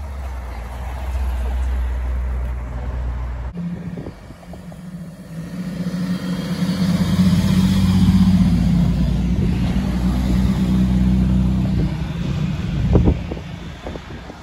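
An Aston Martin Lagonda's V8 drives past with a low steady hum. After a cut, a Lamborghini Espada's V12 passes close by, its engine note building to a peak and then fading, with a sharp knock near the end.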